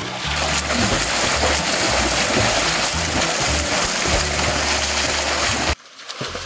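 Water splashing as people swim hard strokes through a small pool, over background music with a steady bass line. The splashing cuts off abruptly near the end.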